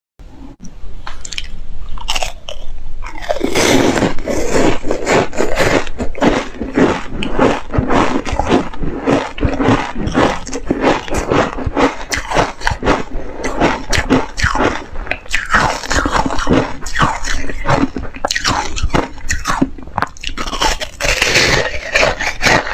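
Hard frozen ice being bitten and chewed close to a clip-on microphone: crisp crunches in quick succession. After a few quieter clicks, the crunching starts about three seconds in and keeps going.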